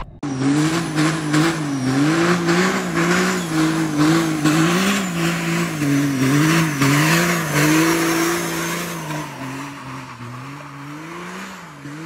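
Pickup truck doing a burnout: the engine is held at high revs, its pitch wavering up and down as the throttle is worked, over the noise of spinning, smoking tyres. It grows quieter over the last few seconds.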